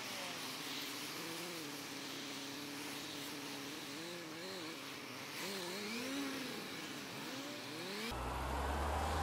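Suzuki Bandit's inline-four engine running on the move, its note holding steady and then rising and falling several times as the rider eases off and pulls away again, over a steady hiss of wind and wet road.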